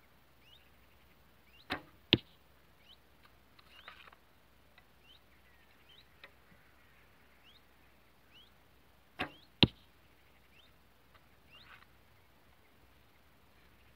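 Two shots from a 40 lb Bearpaw Slick Stick traditional bow. Each is a sharp thump of the string being released, followed about half a second later by a louder smack as the wooden arrow hits the target.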